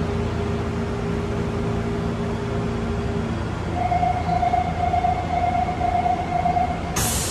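Steady hum of a stopped 6000-series subway car's onboard equipment. From about halfway a tone beeps over and over with a thin steady high tone above it, the warning that the doors are about to close. A sudden loud noise starts near the end.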